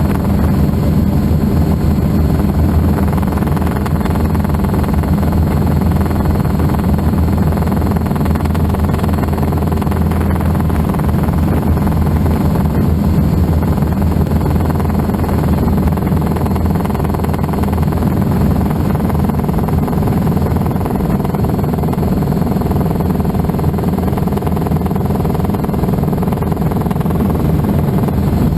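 Helicycle kit helicopter in steady flight heard from the cockpit: its Solar T62T-32 turbine engine and rotor make a loud, steady low drone.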